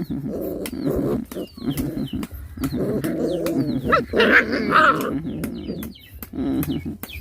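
Nursing puppies whimpering and squeaking continually, with a louder, higher cry about four seconds in and many short clicks throughout.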